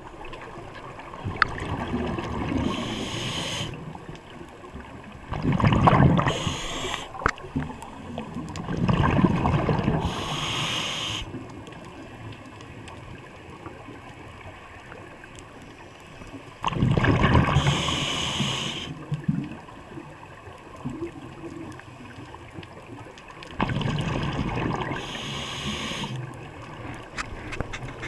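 Scuba breathing underwater through a regulator. A hiss comes on each inhale, and each exhale sends out a gurgling rush of bubbles, repeating every several seconds over a steady low underwater rush.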